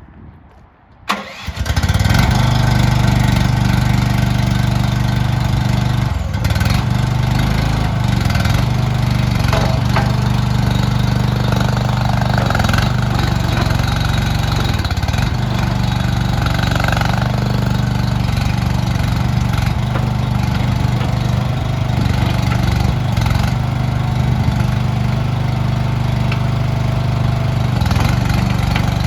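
The engine of an SDLANCH SDLL60 mini skid steer is cranked and catches about a second in, then runs steadily at an even speed.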